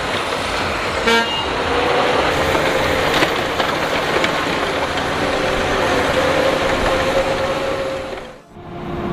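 Heavy earthmoving machinery engines running, with a steady whine over dense engine noise and a short horn toot about a second in. The sound drops out abruptly near the end.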